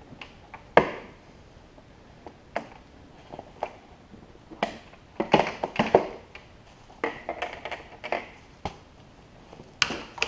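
Metal snap fasteners being pulled apart one after another as a fabric MOLLE panel is unsnapped from a plastic cooler lid: a series of sharp clicks and pops, the loudest about a second in, with clusters about halfway through and near the end, amid handling rustle of the panel.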